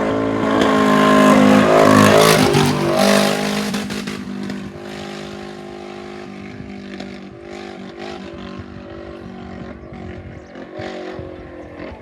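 2WD rally car engine revving loudly with rising and falling pitch for the first few seconds as the car pulls away, then fading to a quieter steady engine note of a car idling.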